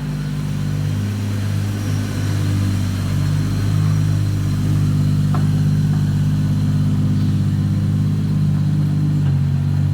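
Car engine idling steadily, with a small shift in pitch about nine seconds in.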